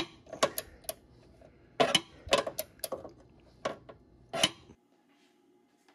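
Small socket ratchet turning a T30 Torx bit, clicking in short irregular bursts as the strut bracket bolt is tightened. The clicks stop about four and a half seconds in.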